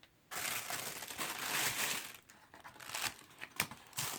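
Packaging crinkling and rustling as it is handled, starting about a third of a second in and going on in uneven crackly bursts.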